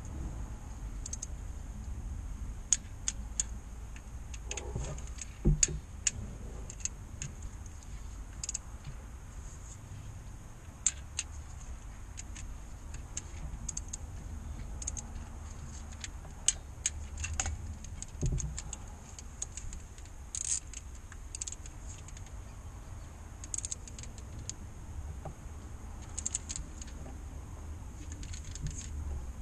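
Hand ratchet clicking in irregular short runs as bolts on the crankshaft rear oil seal housing are tightened, with a few light metal clinks from the socket and tools, over a low steady background rumble.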